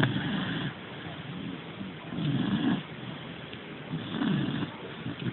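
Snoring in a slow, even rhythm: three snores about two seconds apart.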